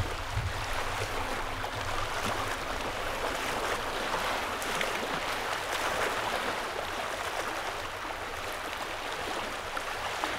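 Small waves lapping and washing over the stones and gravel at the edge of a loch, a steady rippling wash.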